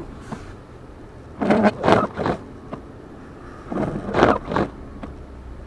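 Car driving on a snow-covered road, heard from inside the cabin: a steady low road rumble, with two louder bursts of about a second each in the middle.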